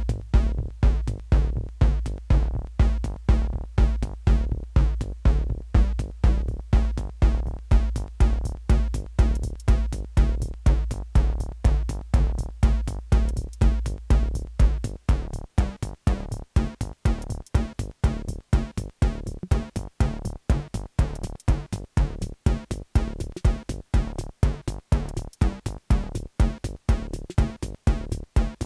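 Techno played live on hardware drum machines and analogue synthesizers: a steady kick drum about two beats a second under a deep bass line, with hi-hats ticking above. About halfway through the deep bass drops out, leaving the drums and the higher synth parts.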